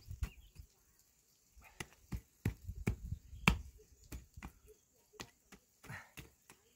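A short-handled hand hoe chopping and scraping into dry, stony soil: a quick, irregular run of sharp knocks and dull thuds, the loudest strike about halfway through.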